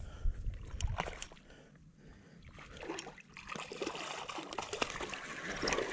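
Water splashing and trickling as a hooked black drum thrashes at the surface while it is reeled in, the splashing thickening from about two and a half seconds in.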